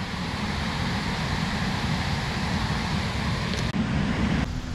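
Steady rushing of water pouring over a dam spillway and churning into foam below it.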